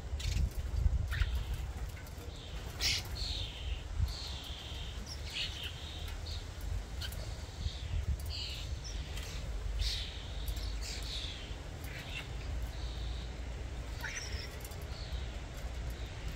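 Common starlings calling: many short chirps, whistles and clicks, scattered and overlapping, over a steady low rumble.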